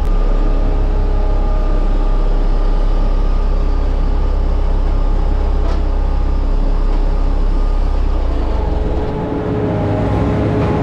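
Small roller compactor's diesel engine running steadily under way, a deep drone with a steady whine above it. The low drone changes about nine seconds in.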